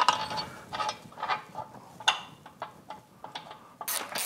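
A few scattered metal clicks and clinks as nuts and washers go onto the gearcase mounting studs, then a hand socket ratchet clicking in quick repeated strokes near the end as a nut is run down to bottom out before torquing.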